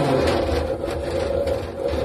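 Steady mechanical hum with a low drone, and plastic sheeting rustling and scraping against a stainless steel panel a few times.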